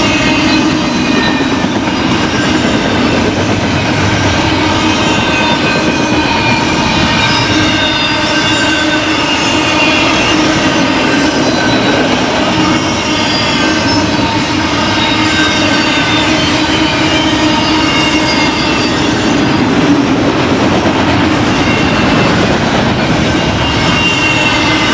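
Cars of a BNSF intermodal freight train rolling past: a steady rumble of steel wheels on rail with wheel squeal in several shrill tones that drift in pitch.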